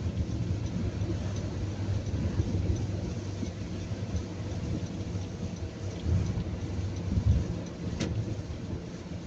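Car driving in the rain: a steady low road rumble with the hiss of rain and spray, and one sharp click about eight seconds in.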